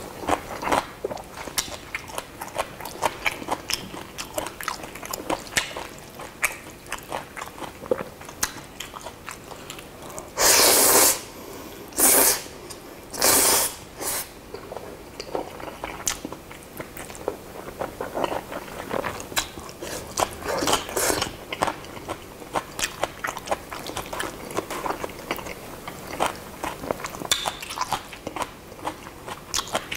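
Close-miked eating of Chapagetti black-bean instant noodles: steady chewing with a run of small wet mouth clicks and smacks. About ten to fourteen seconds in come three loud, hissing slurps.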